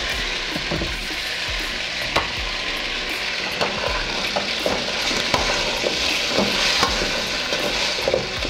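Chunks of beef sizzling in oil in a stainless steel pot as a spoon stirs them, with scattered irregular clicks of the spoon against the pot over a steady frying hiss.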